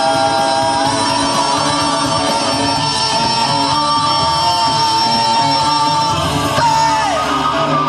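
Live rock band playing, an electric guitar holding long sustained lead notes over bass and drums, with one note bending down near the end.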